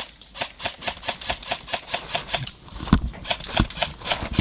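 Airsoft gun fire: quick, evenly spaced shots at about six or seven a second in runs of one to two seconds, breaking off briefly halfway through. A couple of dull thumps come about three seconds in.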